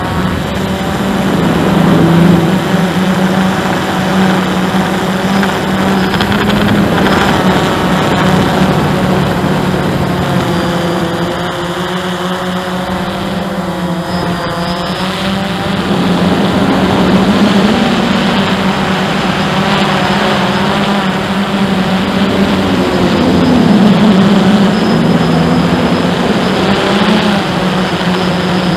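Hubsan 109 quadcopter's electric motors and propellers buzzing steadily in flight, heard from the onboard camera, the pitch wavering up and down as the throttle changes, louder at a few moments.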